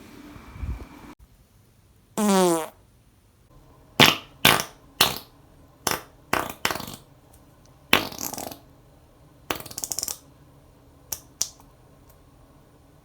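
A rapid series of separate human farts, about a dozen in all. The first is a longer, pitched one that rises in tone. Most of the rest are short sharp blasts, with a longer one about eight seconds in and a rapid fluttering one about nine and a half seconds in.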